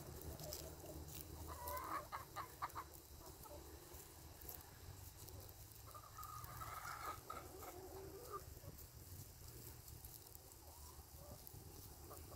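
A flock of chickens clucking, with a quick run of clucks about two seconds in and a longer drawn-out call around six to seven seconds in.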